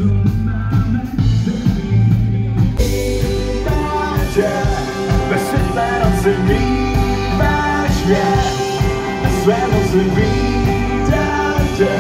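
Live rock band playing on an outdoor stage: drum kit, electric guitars and bass. About three seconds in the music fills out and a voice sings over it.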